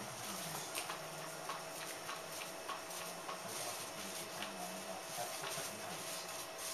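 Small electric motor of a battery-powered cat toy whirring under its round fabric cover as it turns the hidden wand, its pitch wavering up and down, with a few light ticks.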